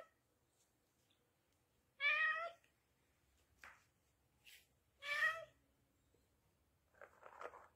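Domestic cat meowing twice, about three seconds apart, each call about half a second long with a wavering pitch. A shorter, rougher sound follows near the end.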